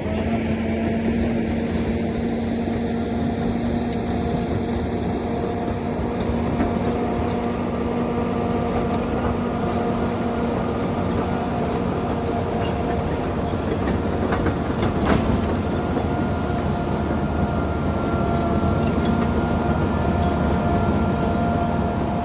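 John Deere 850 crawler dozer working: the diesel engine runs steadily under load while the steel tracks clank, with a short cluster of sharp knocks about fifteen seconds in.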